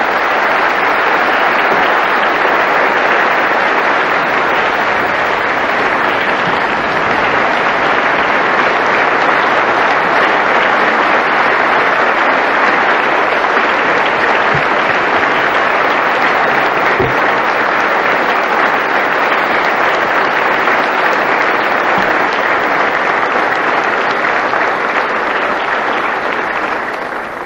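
Long, steady applause from a large assembly of members of parliament clapping together: a standing ovation at the close of a speech.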